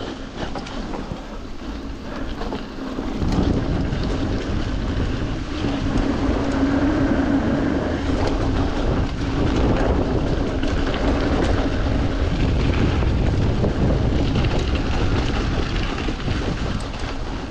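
Mountain bike riding down a wet, muddy dirt trail: tyres rolling through mud and the bike rattling over the ground, mixed with wind on the microphone. It gets louder about three seconds in and stays loud.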